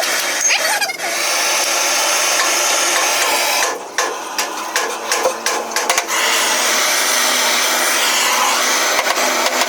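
A steady whirring workshop machine. About four seconds in it stops and starts several times, then runs on steadily.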